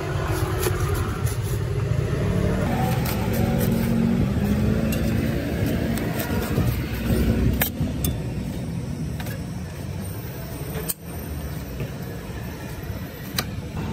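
Steady rumble of passing street traffic and car engines, with a few sharp knocks from a cleaver striking a wooden chopping board as it cuts through a thick pancake.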